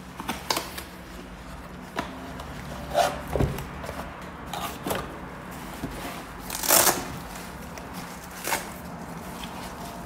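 Hands opening a cardboard box and handling the cloth tool roll of wrenches inside: irregular rustling and sliding with short clicks and knocks, the loudest rustle about seven seconds in.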